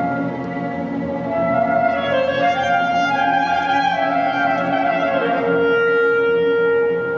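Small chamber ensemble of violins, clarinet, cello, double bass and piano playing a slow piece; the melody steps downward, then settles on one long held note about five seconds in.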